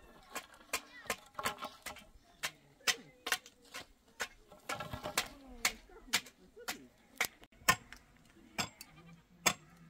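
Irregular sharp knocks, about two or three a second, with brief voices in between.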